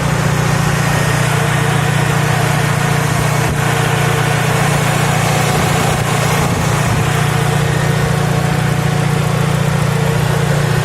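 Fiat Punto engine idling steadily.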